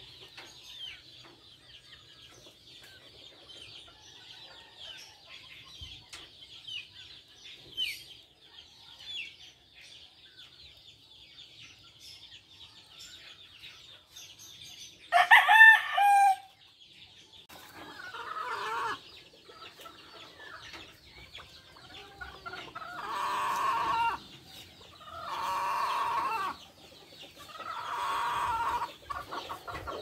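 Budgerigars chattering with a steady high twittering, while a rooster crows loudly about halfway through and chickens call four more times, loudly, in the second half.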